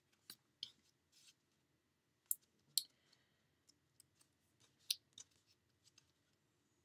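Small craft scissors snipping little pieces off a sheet of foam adhesive dimensionals: a handful of short, sharp snips spread over several seconds.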